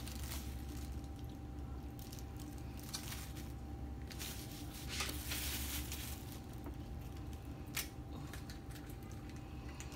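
Soft squishing and rustling as a siopao (steamed bun) is pulled apart and handled on its paper liner and plastic bag, with a longer, louder rustle about four to six seconds in. A faint steady hum runs underneath.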